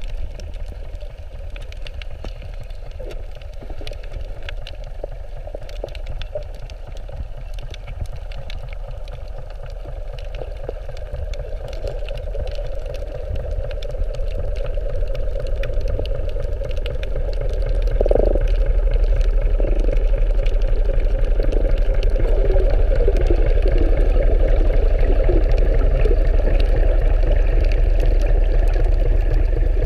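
Muffled underwater sound: the steady low rumble of a boat engine idling, carried through the water, getting louder about midway and then holding steady, with scattered faint clicks.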